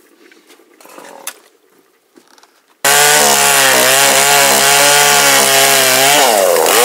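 Two-stroke chainsaw running at high speed as it cuts through a log. It starts abruptly about three seconds in, after a few faint clinks, and its pitch dips briefly and rises again near the end.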